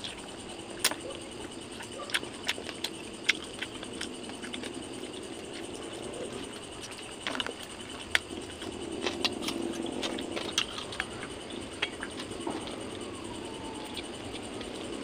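Close-miked mouth sounds of a person eating grilled fish and rice by hand: irregular sharp smacks and wet clicks while chewing, over a steady faint background.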